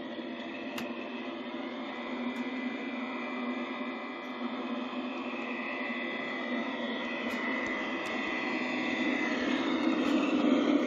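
LGB garden-scale model electric locomotive running on the track, a steady motor and gear whine with wheels rolling on the rails. It grows louder as the train approaches and is loudest near the end, when it passes close by, with a few light clicks along the way.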